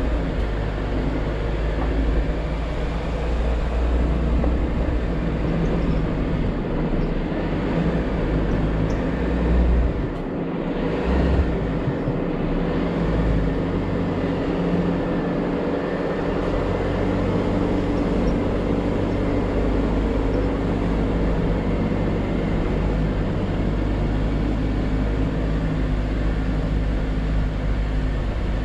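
Jeep Wrangler JL engine running at low revs as it crawls a rocky dirt off-road trail, with a steady deep rumble; the engine note shifts and dips between about ten and sixteen seconds in.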